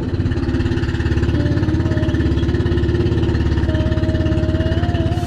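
The engine of a wooden outrigger boat (bangka) running steadily while under way, a loud, fast, even chugging.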